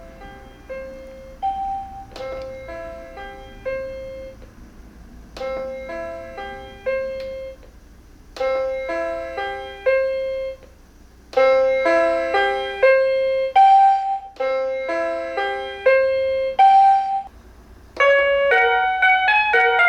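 Electronic chime tones from a 16-channel commercial chime unit: a series of short few-note melodies, one after another with brief pauses between them, some repeated.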